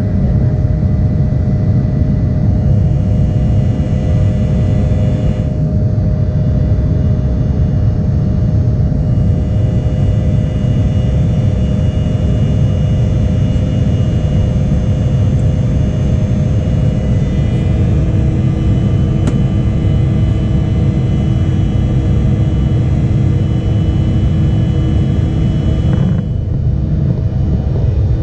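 Steady loud rumble heard inside the cabin of an Embraer E175 airliner, from its two GE CF34 jet engines and the airflow, with steady whining tones over it. About two-thirds of the way through, a new steady hum and higher whine join in.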